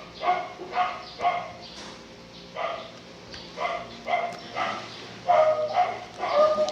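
Neighbour's dogs barking repeatedly, about ten short barks in irregular clusters.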